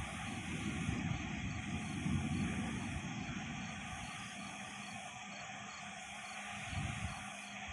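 Crickets and other night insects chirping steadily in a regular pulsing pattern. A low rumble of distant thunder swells and fades during the first few seconds.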